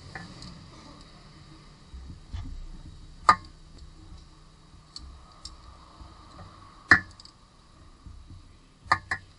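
Hands working the accessory drive belt around its pulleys: a low rustle of handling with a few sharp clicks, one about three seconds in, another near seven seconds and two quick ones near the end.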